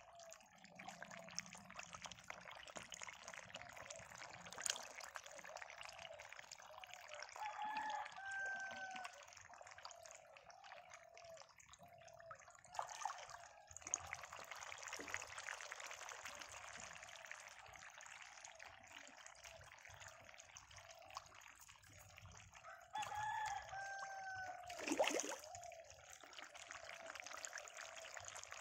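Steady trickling water, with a bird calling twice, about eight seconds in and again around twenty-three seconds, and a sharp knock near twenty-five seconds.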